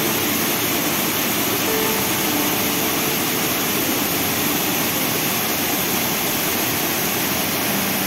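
Waterfall cascading over boulders, a loud, steady rush of water.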